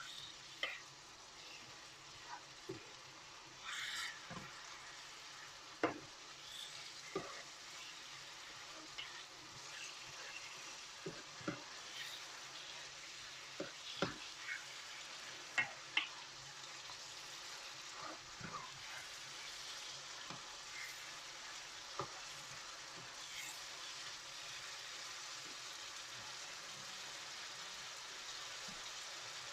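Chicken jalfrezi sizzling steadily in a pan, with a spoon clicking and scraping against the pan every few seconds as it is stirred.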